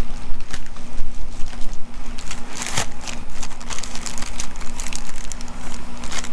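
Plastic packaging crinkling and crackling in irregular clicks as a new gasket is pulled out of its bag, over a steady low hum.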